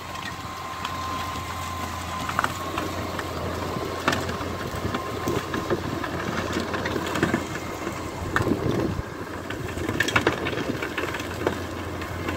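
Massey Ferguson 6499 tractor running under load as it pulls a Bunning rear-discharge manure spreader whose upright beaters are flinging box muck. A steady whine fades out after about two seconds, and scattered knocks run through the steady machine noise.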